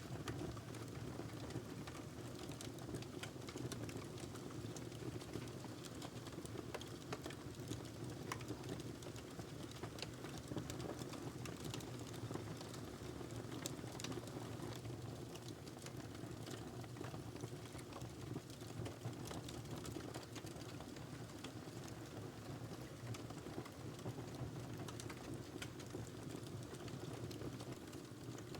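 Wood fire crackling in a fireplace: many small irregular pops and snaps over a steady low burning rumble.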